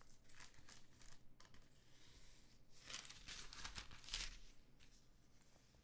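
Near silence: room tone with a few faint, soft rustles.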